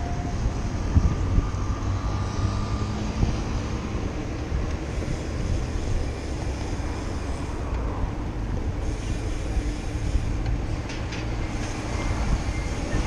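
Steady wind and road rumble on a handlebar-mounted camera's microphone as a bicycle rolls along a paved path.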